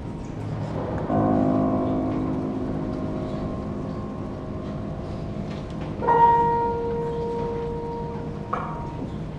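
Chamber quartet of violin, cello, clarinet and piano playing slow, bell-like chords: one chord enters about a second in and slowly fades, and a second, louder one sounds at about six seconds, is held for two and a half seconds and then stops.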